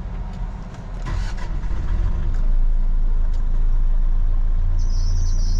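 Box truck engine started and settling into a steady idle; about a second in it starts and builds to a steady run. Near the end a shrill, steady high-pitched squeal sets in over the idle, the fault noise that the owners cannot trace.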